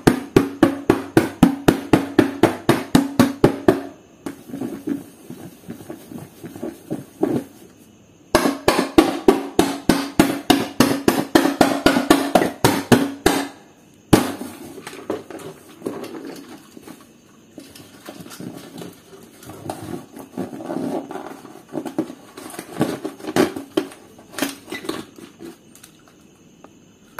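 Rapid, regular knocking, about five sharp knocks a second, in two long runs: a paper sheet being jabbed through, with a steady low hum under the knocks. Later come quieter, scattered knocks and crumpling of the torn paper.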